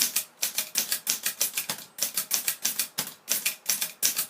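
Vintage Corona manual typewriter being typed on: a fast, even run of sharp key strikes, about five a second, with a brief pause about two seconds in.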